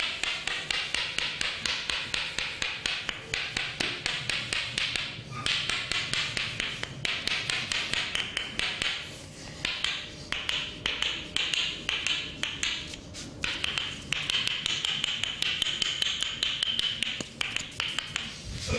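Massage percussion: a barber's hands rapidly tapping or chopping on the client at about four to five strikes a second, in runs broken by a few short pauses.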